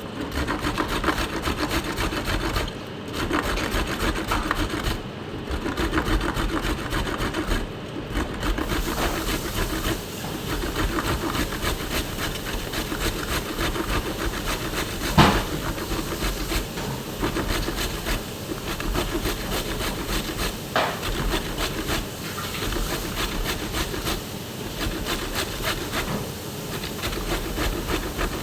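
Rapid, continuous scraping strokes of kitchen food preparation, pausing briefly a few times in the first eight seconds, with a single sharp knock about fifteen seconds in.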